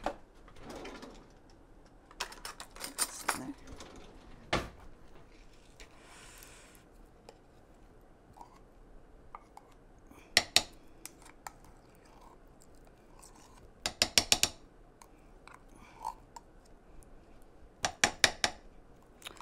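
A spoon clinking and scraping inside a small metal can, in quick bursts of several strikes a few times over, as thick tomato paste is knocked out of the can into a crock pot.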